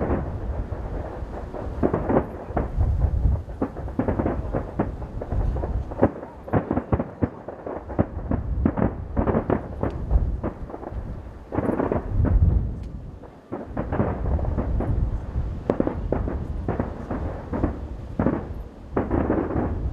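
Aerial firework shells bursting in quick succession, a dense run of booms and crackles over a continuous low rumble, with a brief lull about two-thirds of the way through.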